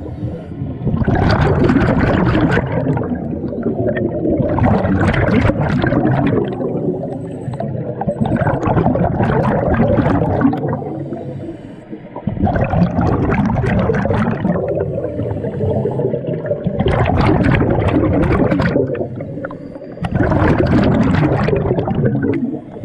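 Scuba regulator breathing underwater: loud rushes of exhaled bubbles in about six long surges, one every three to four seconds, with short quieter breaths in between.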